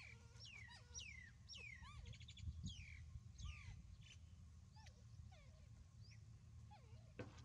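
Faint bird calls: a series of quick falling chirps repeated about twice a second, with a short rapid trill about two seconds in, over a low steady rumble of outdoor background noise.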